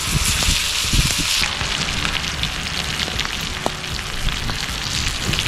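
Steak frying in garlic butter in a pan over a campfire: a steady sizzling hiss with small pops, the wood fire crackling under it. The hiss eases a little about a second and a half in.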